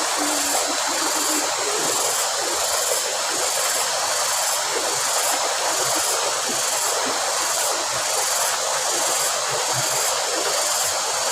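Water rushing through an irrigation channel, a steady, even hiss. A faint high sound pulses a little more than once a second above it.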